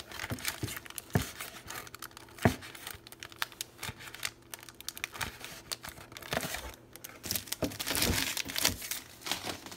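Cardboard box and a foil-wrapped Pokémon card pack crinkling and tearing as the pack, glued to the cardboard inside a Fruit Roll-Ups box, is pried out by hand. There are sharp snaps now and then and a denser stretch of crackling near the end.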